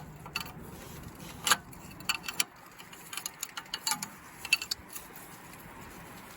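Irregular light clicks and taps, the sharpest about one and a half and two and a half seconds in, over a faint low hum that fades after about two seconds.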